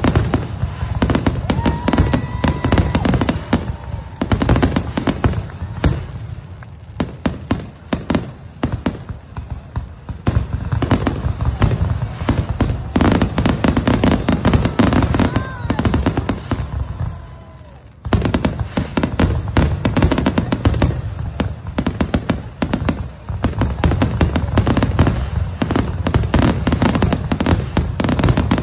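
Aerial fireworks display: a dense, continuous run of shell bangs and crackle, easing off briefly a few times before picking up again.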